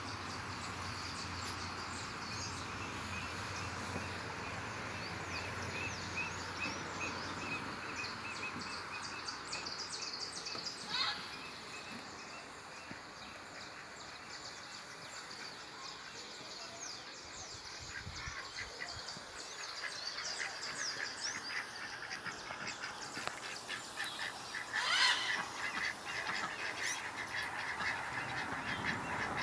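White domestic waterfowl calling, with two loud, short calls, one about a third of the way in and one near the end. A steady high chirping runs under them.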